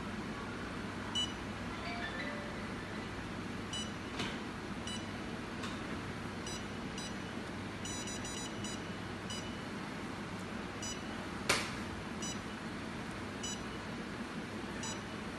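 Touchscreen control panel of a Space Oxygen facial-treatment machine giving a short high beep with each button press, about fifteen beeps at irregular intervals with a quick run of them near the middle. A sharp click about three-quarters through is the loudest sound, over a steady low hum.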